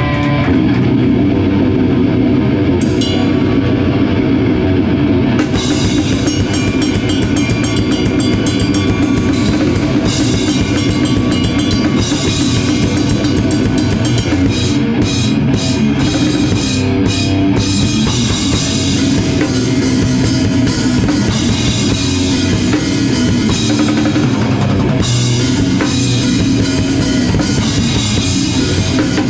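A rock band playing loud live: a full drum kit pounding with bass drum under dense amplified instruments, the cymbals crashing in about five seconds in and dropping out briefly a few times around the middle.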